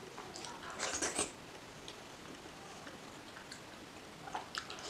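Fingers tearing and handling a fried egg, with a cluster of faint crackles about a second in and a few soft clicks near the end.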